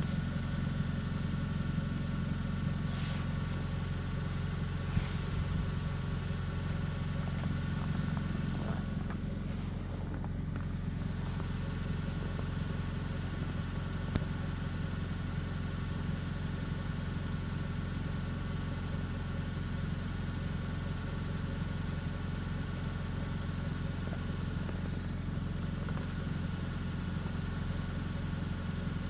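A motor running steadily at idle, a constant low hum, with a couple of faint clicks.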